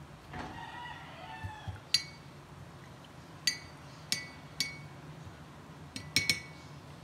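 Paintbrush being rinsed in a ceramic mug of water, the handle clinking against the mug about seven times, each strike ringing briefly, with three quick clinks near the end. A short wavering, pitched call-like sound comes about half a second in, before the clinks.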